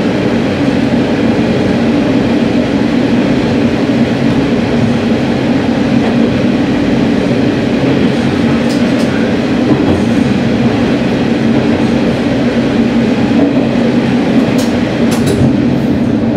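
Sanriku Railway diesel railcar running through a tunnel: a steady drone of the engine and the wheels on the rails. A few sharp clicks come near the end.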